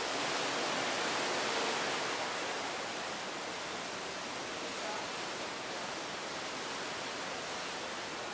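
Sea water rushing and foaming along the hull of a moving cruise ship, a steady rushing hiss. It swells over the first couple of seconds and then eases slightly.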